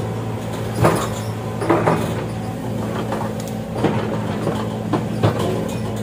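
Excavator's diesel engine running steadily, with irregular short clanks and creaks from the machine working every second or two.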